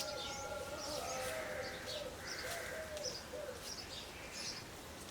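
Wild birds calling: short high chirps repeating every half second or so, over a lower wavering call.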